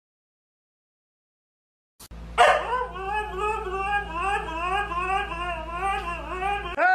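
Silence for about two seconds, then a white husky howls in one long call whose pitch keeps wavering up and down for about four seconds. It starts a second call at the very end.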